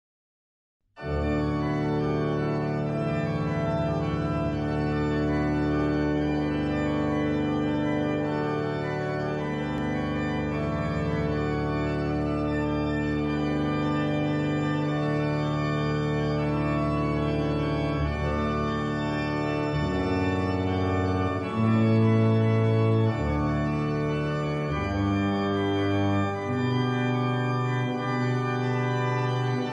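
Organ music: slow, long-held chords entering about a second in, with the chords changing more often in the second half.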